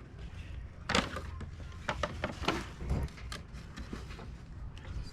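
A series of knocks and clatters from objects being handled on a counter, about six sharp ones, the loudest about a second in.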